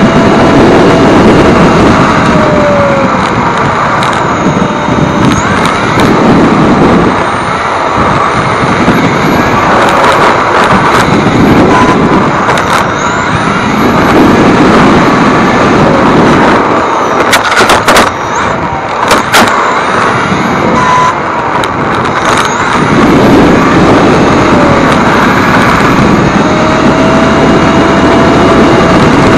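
Electric 1/10 Xray T4 touring car heard from on board: a 13.5-turn stock brushless motor whining over loud tyre, drivetrain and wind noise, its pitch gliding up and down as the car speeds up and brakes through the corners. A cluster of sharp knocks and rattles comes a little past halfway.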